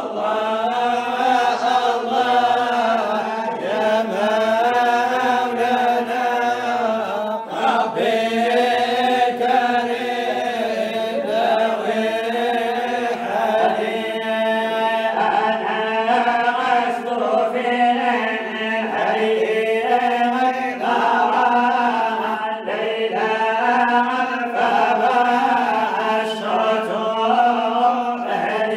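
Male voice chanting a Sufi devotional qasida in Arabic, with long ornamented notes that waver and turn, over a steady low held note.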